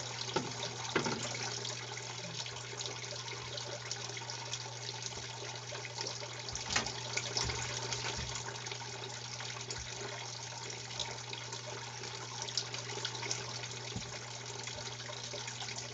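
Water running steadily from a small hose into a two-stage stackable ABS plastic sluice box and trickling down through it, with a steady low hum underneath.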